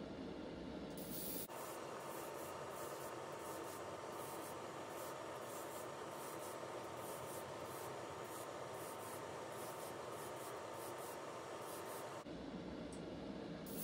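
Faint, steady hiss of an airbrush spraying paint. It starts about a second and a half in and stops shortly before the end.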